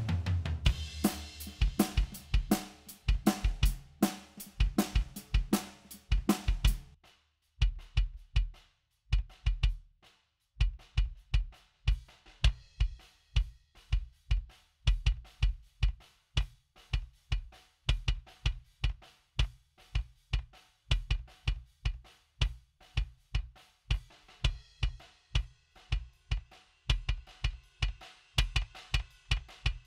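Recorded acoustic drum kit playing a beat, run through the Vertigo Sound VSM-4 harmonic-saturation plugin. For the first several seconds the full kit plays with cymbal wash. After brief stops around seven and ten seconds it plays on as a steadier beat of deep kick-drum thumps and sharper hits, with little cymbal.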